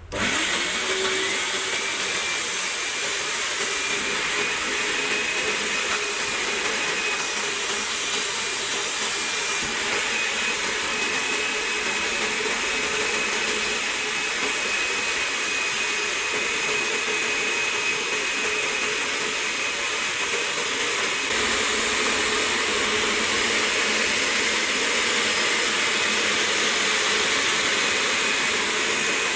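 Suction motor of a PAK EDW 722 2400-watt upholstery cleaning machine switching on, its whine rising briefly as it spins up, then running steadily with a loud rushing hiss. The sound grows slightly fuller a little over twenty seconds in.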